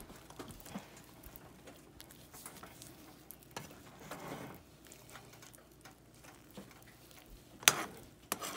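Metal spoon spreading and smoothing a thick mashed-potato mixture across a skillet: soft, intermittent scraping and squishing. Near the end the spoon gives one sharp clink against the pan.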